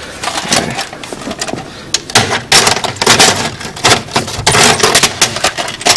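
Handling noise of a VHS cassette being pushed into a VCR's tape slot: a scatter of plastic clicks and knocks over rubbing and rustling.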